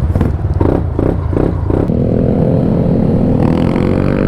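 Motorcycle engine pulling away: a few short pulses in the first two seconds, then a steady engine note that rises slowly in pitch as the bike gathers speed.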